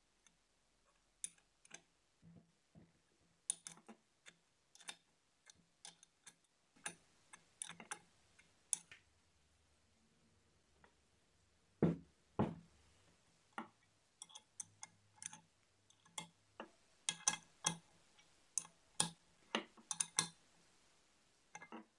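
Open-end wrench clicking on the bolts of a bench vise as they are tightened, in irregular sharp metallic clicks. Two heavier knocks come about halfway through.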